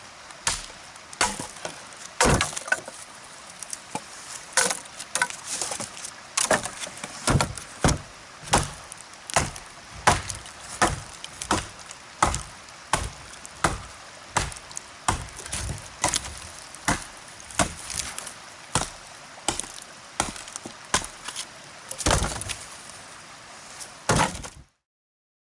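Wood being chopped with a small axe: steady blows about every 0.6 seconds, each a sharp crack of the blade biting into the wood. It cuts off abruptly near the end.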